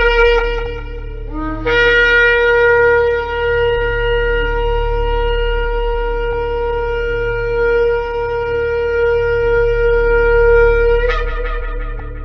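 Shofar (ram's horn) blown in long blasts: one blast ends just after the start, then a short low note jumps up to a long steady note held for about nine seconds, which breaks and cracks upward near the end before fading. A steady low hum runs underneath.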